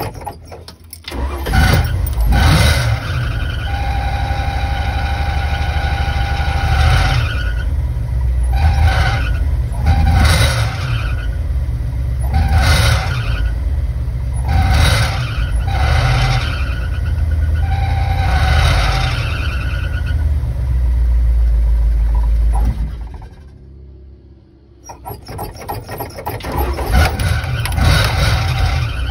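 1972 Dodge van engine on a cold start after sitting unused: it catches about a second in and runs unevenly while the gas pedal is worked, with a high squeal that comes and goes with the revs, typical of a slipping drive belt. About 23 seconds in it dies, then fires up again a couple of seconds later.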